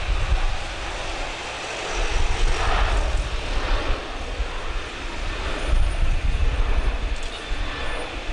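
Boeing 737-800's CFM56-7B jet engines running on the takeoff roll: a steady rumble that swells and dips.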